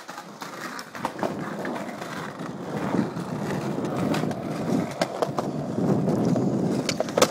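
Skateboard wheels rolling steadily over a concrete sidewalk, with several sharp clacks along the way, the loudest near the end.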